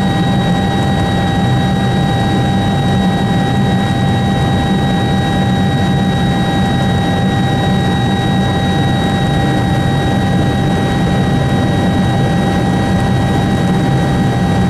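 Helicopter in flight, heard from inside the cabin: a loud, steady engine and rotor drone with a constant high-pitched whine on top.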